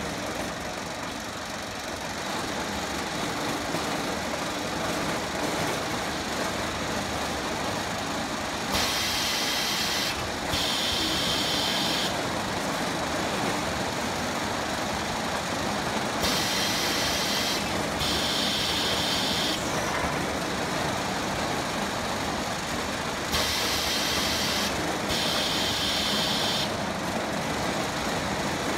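Fuji EC-201 palletizing robot and its roller conveyors running with a steady mechanical hum. A pair of short hisses comes about every seven seconds, three times in all.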